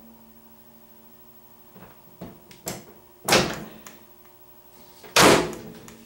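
Microwave oven door being worked: a few light latch clicks, then the door shut with a loud thud about three seconds in and again a couple of seconds later.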